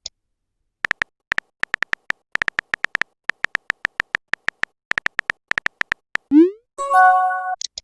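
Chat-app typing sound effect: runs of short, identical beep-like ticks at one high pitch, several a second. About six seconds in, a short rising swoop is followed by a chord-like chime lasting under a second, a message being sent or arriving.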